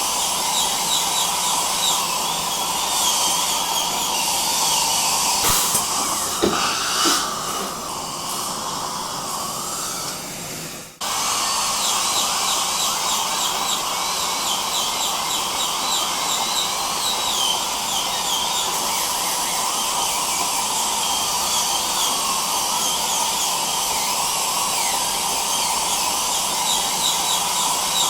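High-speed dental drill whining, its pitch wavering as it works, over the steady hiss of dental suction. It softens and cuts out for a moment about eleven seconds in, then starts again at full level.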